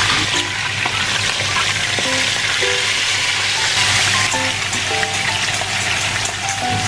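Hot oil sizzling steadily in a frying pan as a whole tilapia fries, with short notes of light background music over it.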